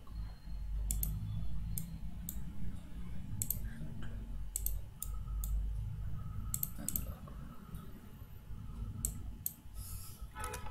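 Computer mouse buttons clicking about a dozen times, several as quick double clicks, over a low steady hum.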